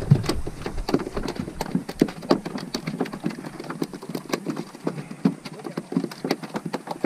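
Freshly caught mahi-mahi flopping on the boat deck, a fast, irregular run of hollow thumps and slaps several times a second.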